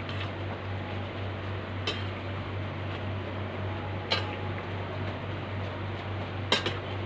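A metal utensil stirring in a stainless-steel wok, striking the pan three times at about two-second intervals with sharp clinks, the last a quick double and the loudest. Under it runs a steady low hum from an electric fan.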